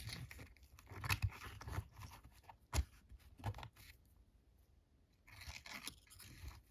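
Small metal lock-picking tools being handled and slid into a fold-up tool kit: scattered clicks and scrapes, with one sharp click about three seconds in and a longer rustling scrape near the end.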